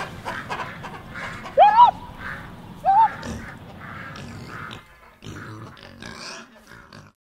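Two short, loud animal-like squealing cries, each rising and then falling in pitch, about a second apart, the first the longer and louder, over fainter background noise that cuts off just before the end.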